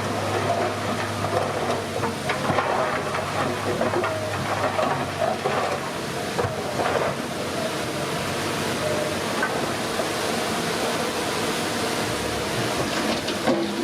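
Komatsu D31P crawler bulldozer's diesel engine running steadily under work, with scattered knocks and clatter.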